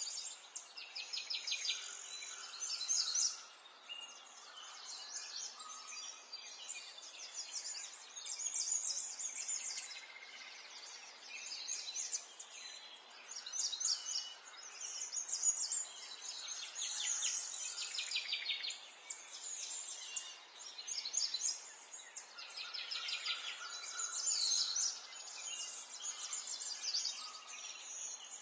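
Several songbirds singing at once, a chorus of overlapping chirps and rapid trills that keep coming and going, over a faint steady background hiss.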